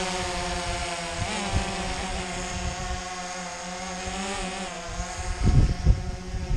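Quadcopter drone's propellers running with a steady multi-tone whine while it hovers low, carrying a fishing line and bait before it climbs. Wind buffets the microphone with low thumps near the end.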